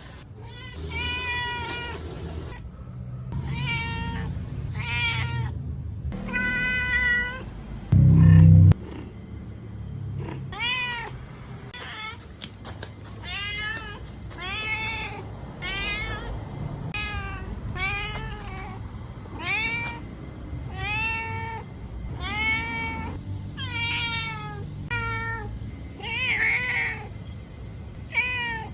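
A stray cat meowing over and over, roughly one meow a second, each call rising and then falling in pitch. A loud low thump about eight seconds in.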